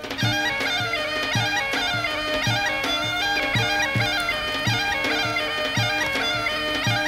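Background folk music: a reedy wind melody over steady held drone tones, with a drum beat about twice a second.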